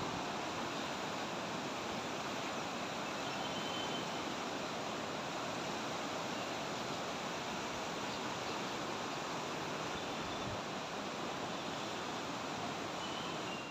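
Steady rush of the fast-flowing Beas River running over rocks and rapids.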